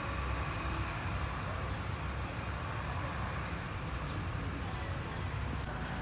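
Steady outdoor background rumble with a few faint ticks. Near the end a single high, steady insect trill starts up.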